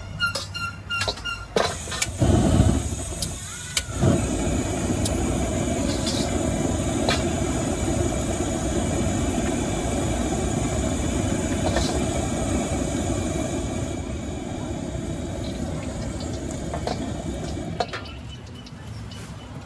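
A few short beeps, then a loud whoosh a couple of seconds in, followed by the steady rush of a street-stall wok's gas burner running at full flame, easing off near the end.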